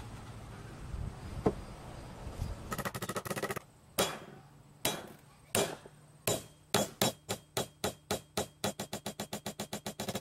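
Hammer driving a nail into cedar boards: a few single blows about a second apart, then a fast run of blows that quickens as the nail goes in.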